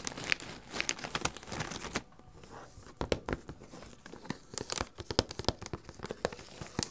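Fingers and nails scratching the glossy wrapping paper of a gift box and handling its metallic ribbon bow, making rapid crinkles and sharp scratchy clicks. It eases off for about a second, two seconds in, then picks up again with more scratches and taps.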